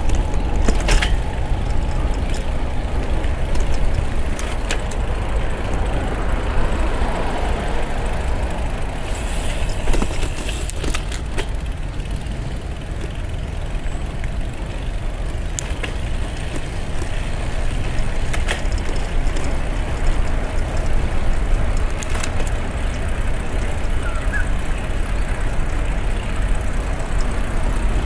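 Steady low rumble of wind and tyre noise from riding a Brompton folding bicycle, with scattered light clicks throughout.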